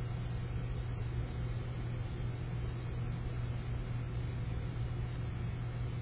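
A steady low hum under an even hiss, with no bird calls.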